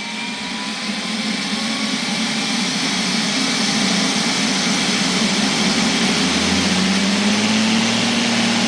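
Neato robot vacuum cleaner starting its cleaning run: the suction fan and brush spin up into a whirring hum that builds in level over the first few seconds, then runs steadily, its low hum rising slightly in pitch about seven seconds in.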